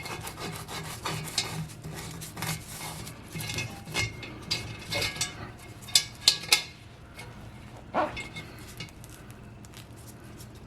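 Hands rubbing and scraping loosened paint off a cast iron kettle, in irregular strokes. A few sharp clicks come about six seconds in, and the rubbing thins out near the end. The paint has been softened by an electrolysis bath and comes away easily.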